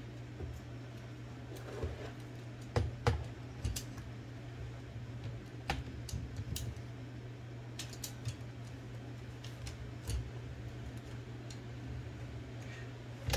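Irregular small clicks and taps of Olivetti Line 98 typewriter carriage parts being handled as ball bearings are worked into the carriage rail by feel, over a steady low hum.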